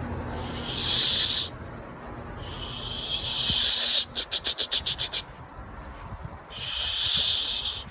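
American alligator hissing: three loud, drawn-out defensive hisses, each about a second or more long, with a quick stuttering run of short hiss pulses, about eight a second, between the second and third.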